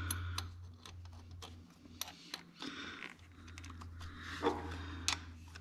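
Small metallic clicks and taps of a hand and small wrench working a wire terminal at the back of a truck alternator, over a steady low hum, with one brief vocal sound about four and a half seconds in.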